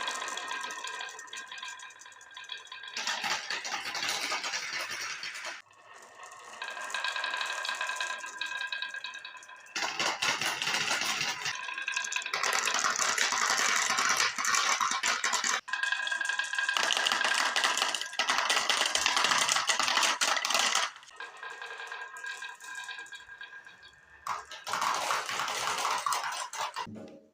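Marbles rolling and clattering down a HABA wooden marble run, a dense rattle of small clicks with a ringing hum. It comes in several runs of a few seconds each, the longest lasting about nine seconds, with quieter pauses between them.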